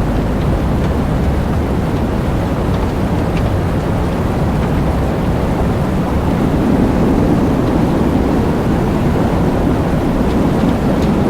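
Loud, steady storm-wind noise with a heavy low rumble and no siren tone, swelling a little about six seconds in.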